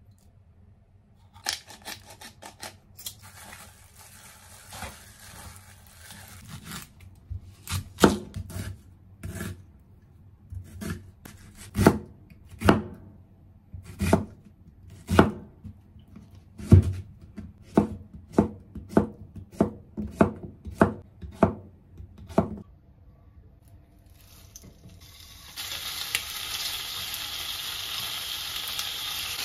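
Kitchen knife dicing an onion on a wooden cutting board: a long series of sharp chopping strokes that speeds up to about two a second. About four seconds before the end, a steady sizzle starts as chicken pieces and garlic fry in a hot frying pan.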